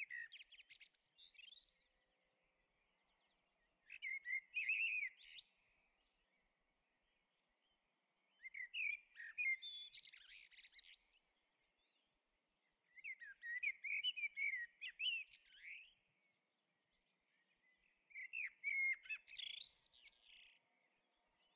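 A songbird singing in short, varied phrases of about two seconds each, five times, with pauses of a few seconds between them.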